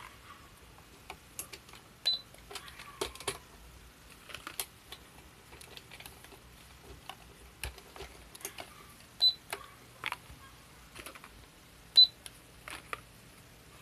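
Toy cash register's scanner beeping three times, short high beeps spread through the stretch. Light clicks and clatter of small plastic toys being handled lie between the beeps.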